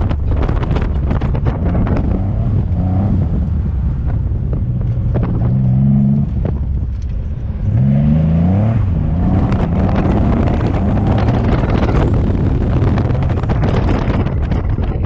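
Twin-turbo Nissan 350Z's V6 engine being driven hard, its pitch climbing under acceleration. About six seconds in it drops back as the throttle comes off, then climbs again, with wind noise on the microphone throughout.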